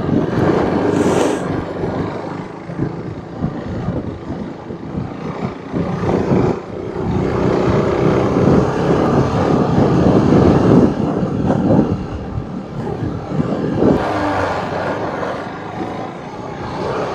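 Motorcycle engine running under way on a rough off-road track, its note rising and falling with the throttle.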